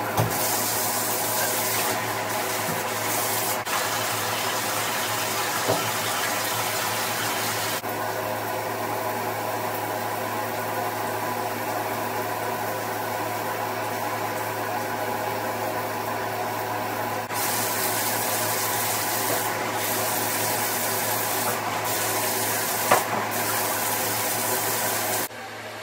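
Shower water running steadily. Its hiss softens for several seconds midway and then comes back, and a few light knocks sound, the sharpest about 23 seconds in.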